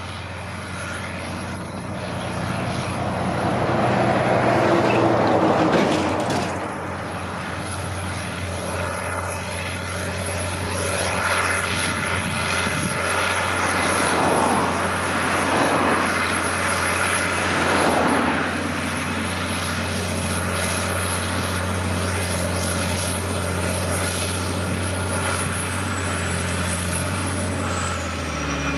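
Caterpillar Challenger MT875C tracked tractor working under load, its diesel engine running with a steady deep drone as it pulls a large disc cultivator through stubble. Louder swells of rushing noise come around five seconds in and again from about eleven to eighteen seconds.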